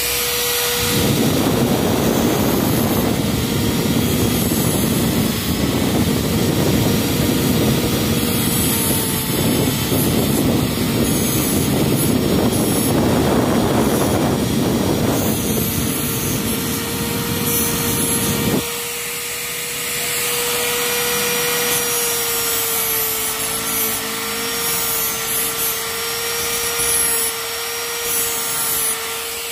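A handheld rotary grinder with a small cutting disc grinds new teeth into the worn splines of a motorcycle engine's sprocket shaft. The rough, loud grinding runs over the tool's steady motor whine and stops about 18 seconds in. After that the grinder keeps running with only light touches.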